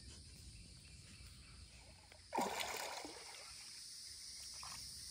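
Shallow water sloshing in one brief splash about two and a half seconds in, over a steady high drone of insects.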